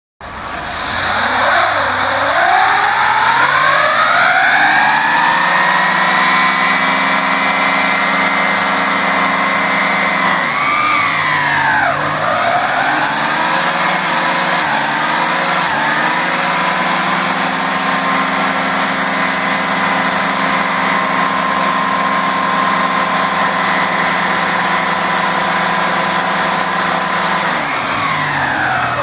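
1985 Chevrolet Caprice doing a stationary burnout: the engine revs up about two seconds in and is held at high revs with the rear wheels spinning. It drops briefly about halfway through, revs back up and holds again, then falls back near the end.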